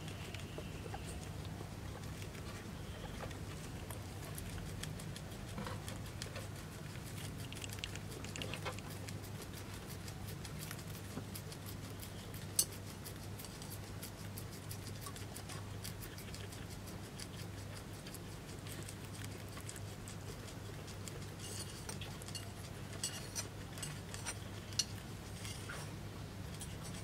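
Guinea pig chewing long green corn leaves: a stream of fine crisp crunching clicks, with a sharper snap about halfway through and a flurry of clicks near the end, over a steady low hum.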